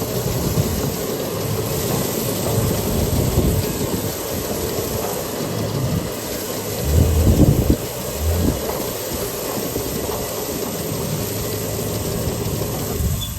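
Ranch feed truck's engine running under load with a steady rumble as the truck, stuck in snow, tries to pull free; it swells louder for about a second around the middle.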